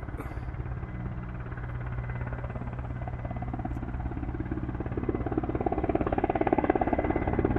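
Helicopter flying overhead, its rotor beating steadily over a low engine hum, growing louder from about five seconds in as it comes closer.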